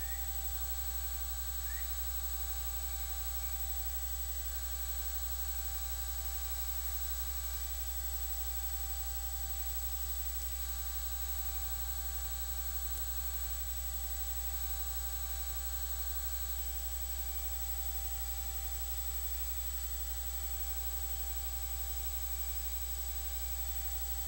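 Steady low electrical hum with an even hiss and a few faint steady high tones, unchanging throughout; no other sound stands out.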